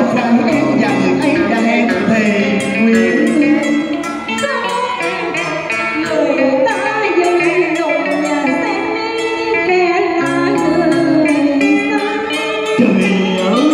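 Cải lương music: a đàn tranh (Vietnamese zither) plucked with bent, wavering notes, accompanying a singing voice.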